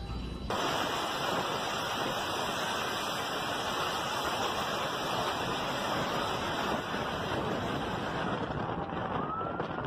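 Steady, dense rushing of strong wind buffeting the microphone as the camera drives into a thick cloud of blown dust. A siren starts rising in pitch near the end.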